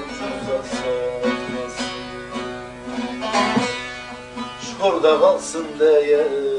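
Bağlama (long-necked Turkish saz) playing a plucked folk melody, with a brief wavering vocal line about five seconds in.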